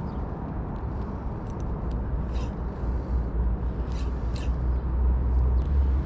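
A steady low rumble that grows slightly louder, with a few brief scratchy clicks.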